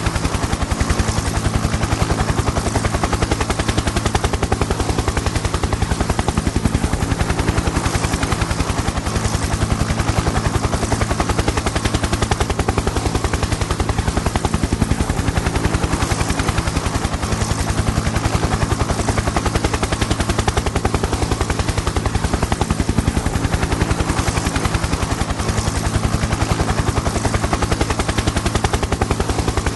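Helicopter in flight: a steady, rapid chop of the rotor blades over a low engine drone.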